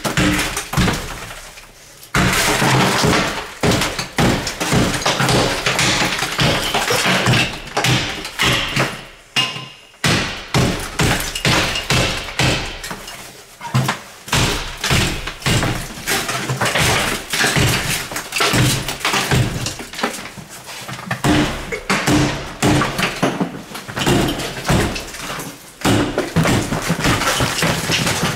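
Rapid, repeated hammer blows against a steel wall safe and the plaster-and-lath wall around it, with plaster breaking and crumbling loose. The strikes barely let up, pausing only briefly about two seconds in and again near the middle.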